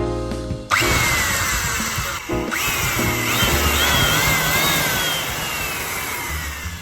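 Power drill boring into a wooden branch, starting about a second in. Its motor whine slides slowly down in pitch and wavers partway through, over background music.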